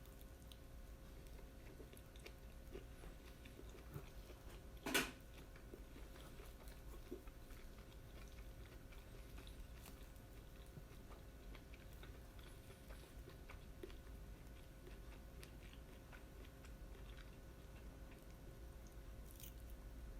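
Faint close-up chewing and biting of grilled yakitori chicken, soft wet clicks and crunches, with one short louder knock about five seconds in.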